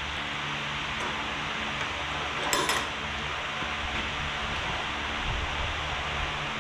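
Steady hissing background noise with a low hum, and one brief metallic clink about two and a half seconds in: a cordless drill being set down on a concrete patio.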